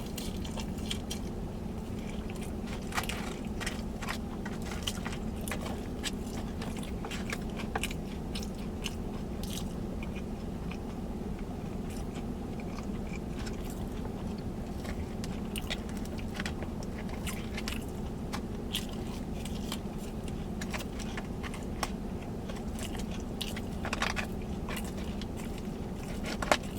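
Close-up chewing and crunching of food, with many small crisp crunches, over a steady low hum.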